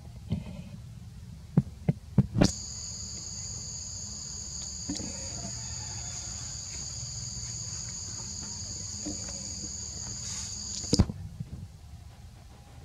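A steady, high-pitched insect drone made of two even tones. It starts abruptly about two and a half seconds in and cuts off about eleven seconds in, with a sharp knock at each edge. A few other sharp knocks come just before it, over a low rumble.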